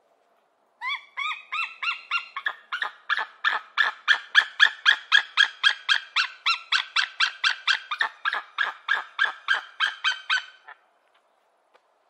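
White-tailed eagle calling: a long, even series of yelping notes, about four a second, the first few sliding upward in pitch. The series stops short about a second before the end.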